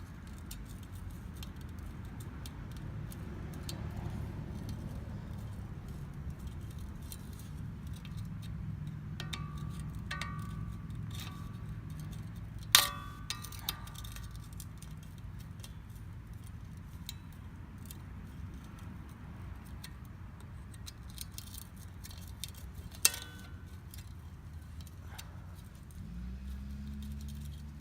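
Scattered metallic clinks and taps as the old handle is broken and pried off a rusty machete blade around its rivets. The loudest is a sharp ringing strike about halfway through, with another near the end, all over a steady low hum.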